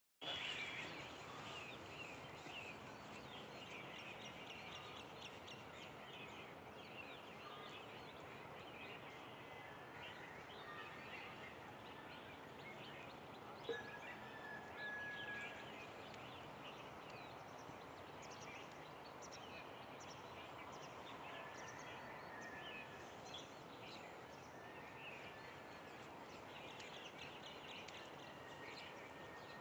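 Faint outdoor ambience of many small birds chirping, with a few longer whistled notes, over a steady background hiss. A single brief knock is heard a little before halfway.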